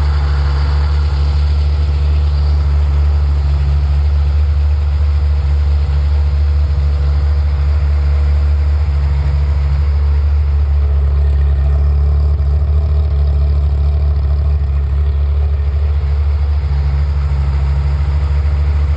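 Ferrari F355's V8 engine idling steadily once warmed up, running normally with the abnormal engine noise absent.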